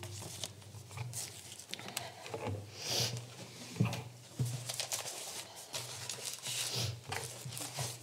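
Papers and clothing rustling with light knocks, picked up close by a lectern microphone, and scattered footsteps.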